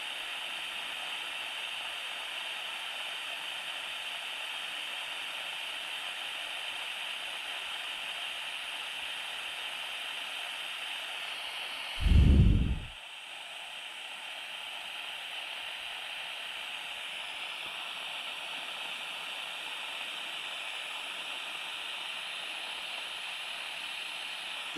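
Butane soldering iron hissing steadily as it heats up, with one dull low thump a little after halfway.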